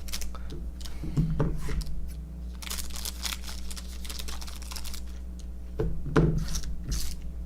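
Hands handling trading cards and pack wrappers: scattered rustles, card flicks and light taps, with a couple of soft knocks, over a steady low hum.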